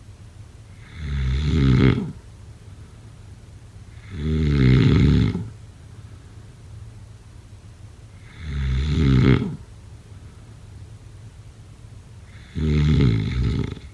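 A person snoring: four loud, rattling snores, each about a second long, coming about every four seconds.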